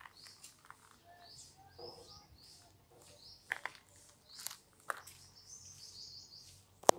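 Small birds chirping in many short high calls, with a few sharp clicks between them and one loud sharp click near the end.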